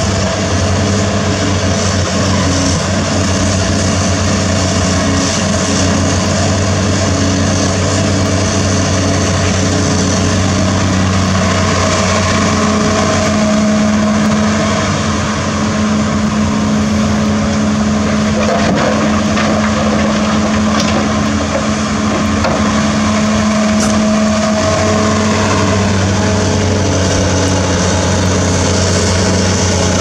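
CAT 336D2 hydraulic excavator's diesel engine running steadily as it loads a dump truck, its note rising a little about a third of the way through, holding there, and dropping back near the end.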